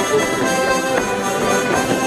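Accordion playing a traditional folk dance tune, with a sharp knock about halfway through from wooden clogs striking the stage boards.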